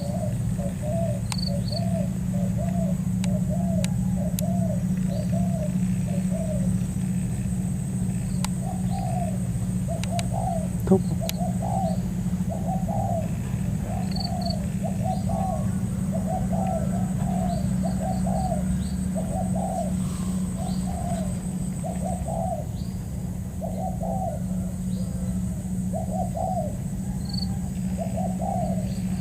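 Spotted dove cooing over and over in short rapid phrases, over a steady low hum, with a few faint high chirps of small birds. A single sharp tap sounds about eleven seconds in.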